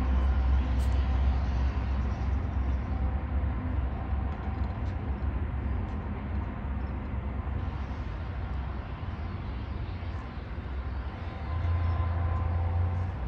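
Diesel-electric locomotive engine, the GE distributed-power unit at the rear of a BNSF intermodal freight train, running as the train pulls away, with a steady low rumble and rail noise. The rumble eases off through the middle and grows louder again near the end.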